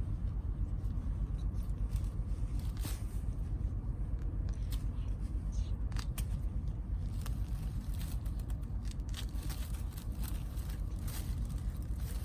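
Scattered small clicks and scrapes, like things being handled, over a steady low rumble.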